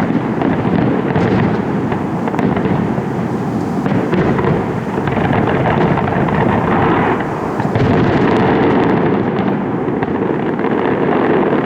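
Aerial fireworks display in a dense, continuous barrage: many bursts and crackles overlapping without a break.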